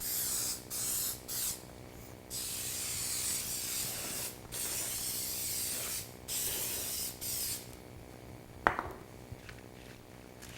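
Aerosol can of temporary-tack spray adhesive hissing in a run of bursts, a few short ones and then several long ones of a second or more. Near the end comes one sharp click.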